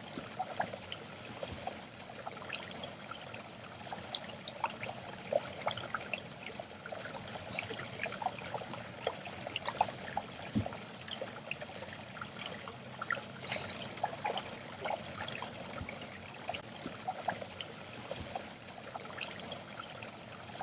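Water from a faucet left running, trickling and splashing into a sink in a steady stream with many small spatters.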